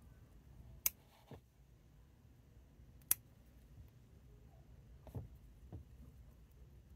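Small bonsai scissors snipping shoots while thinning out a conifer's foliage: two sharp snips, about a second in and about three seconds in, then a few softer cuts later.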